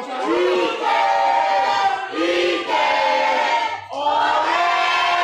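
Wrestling spectators chanting and shouting together in long, drawn-out calls, each held for about a second with short breaks between them.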